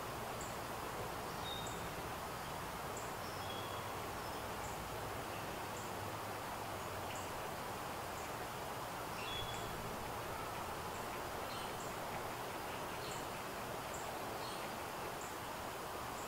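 Spring woodland ambience: a steady background hiss with small birds giving thin, high chirps about once a second and a few short lower notes scattered through.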